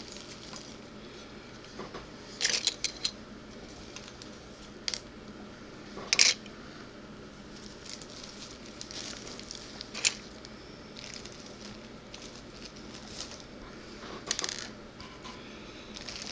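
Plastic model-kit parts being handled and set down on a wooden table: a handful of light, sharp clicks and clacks spread out over several seconds, with soft handling noise between them.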